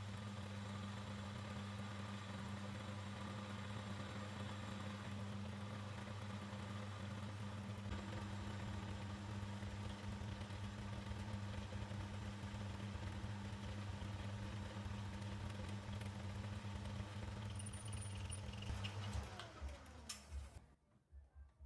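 Electric motor of a workshop machine running steadily with a low hum, then switched off near the end, its pitch falling as it winds down to a stop.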